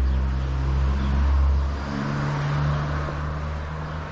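A motor vehicle's engine passing by out of sight: a low engine hum that swells to its loudest a little over a second in and then slowly fades, its pitch shifting about halfway.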